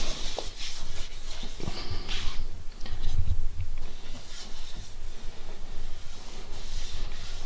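A hand rubbing and brushing over the primed metal of a car's rear wheel arch panel, in uneven strokes, with a low uneven rumble underneath.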